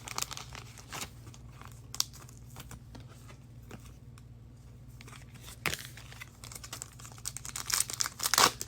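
Optic football trading card packs and cards being handled: foil wrappers crinkling and tearing, with scattered clicks and a denser stretch of crinkling near the end. A steady low hum sits underneath.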